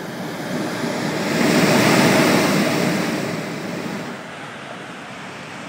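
Sea surge rushing in against the cliff-foot rocks: one swell of surf noise that builds, is loudest around two seconds in, and dies away by about four seconds.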